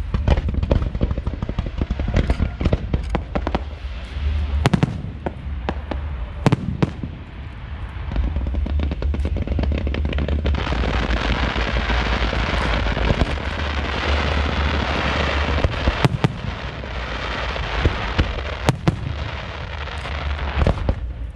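Fireworks going off: sharp bangs at irregular intervals throughout, with a dense crackling hiss from about halfway through that lasts several seconds.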